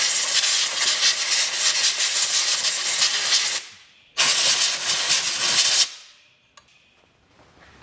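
Compressed-air blow gun hissing in two blasts: a long one of about three and a half seconds, then after a brief pause a shorter one of under two seconds, blowing dirt away from around the automatic transmission's breather plug.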